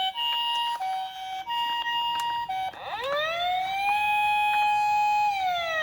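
Toy ambulance's electronic Japanese-style siren: a two-tone hi-lo "pee-po" alternating about every half second, then switching about three seconds in to a wail that rises, holds and falls away near the end.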